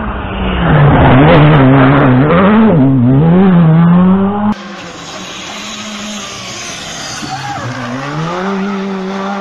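Rally car engines at full attack. One car's engine revs hard and loud, rising and falling with throttle and gear changes. After a sudden cut, a second car's engine, a Škoda Fabia rally car, sounds quieter and more distant, its revs dropping and then climbing again near the end.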